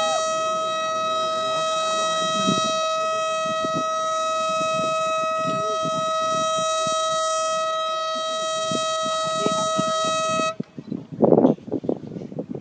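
Blasting warning horn sounding one long, steady, high-pitched blast that cuts off about ten and a half seconds in, the signal that an explosive blast is imminent. A short loud burst of sound follows about a second later.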